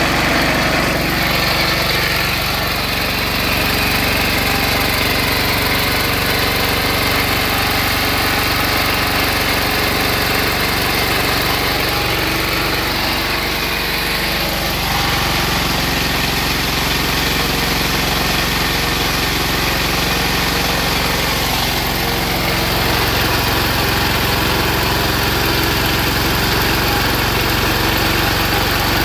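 Small stationary diesel engine, converted to run on woodgas, running steadily.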